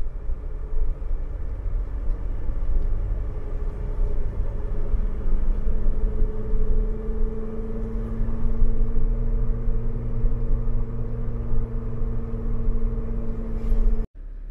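Motor vehicle driving at a steady speed: a low rumble of road and engine with a steady hum, which breaks off abruptly near the end.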